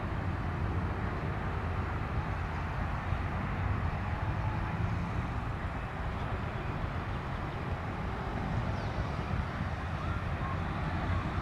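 Jet engines of an Airbus A300-600ST Beluga (General Electric CF6-80C2 turbofans) running at low power as it taxis, heard at a distance as a steady low rumble and hiss.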